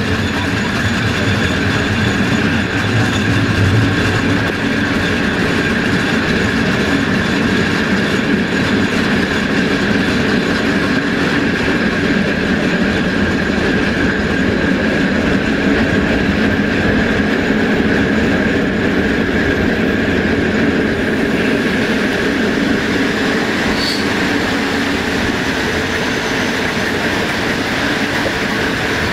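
Passenger train coaches rolling on the rails at speed, heard from an open coach window: a steady running noise with a thin, steady high wheel squeal as the train takes a curve.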